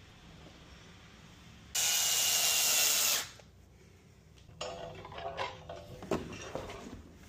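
Power drill running in one steady burst of about a second and a half, driving a screw. It is followed by a few seconds of irregular knocking and clattering as parts are handled.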